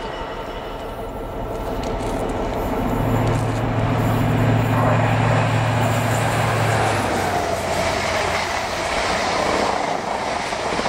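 Class 43 HST passing at speed: the diesel power car's steady engine hum grows as it approaches, then gives way about seven seconds in to the rushing wheel and air noise of the coaches going by.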